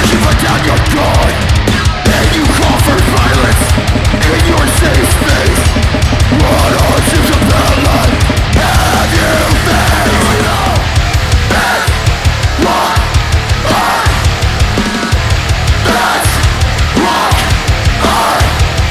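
Loud, aggressive heavy music with drums. From about eleven seconds in, the band plays in stop-start hits, breaking off roughly once a second.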